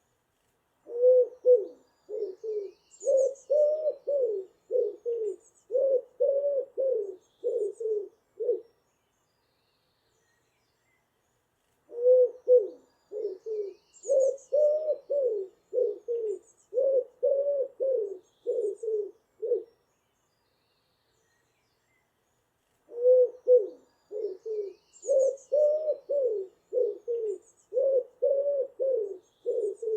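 Pigeon cooing in three bouts of about a dozen low, soft coo notes each, with short pauses between the bouts. Faint high chirps from small birds of the dawn chorus come in during each bout.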